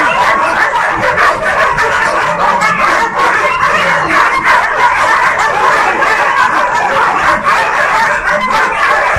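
Many dogs barking at once in a dense, unbroken din.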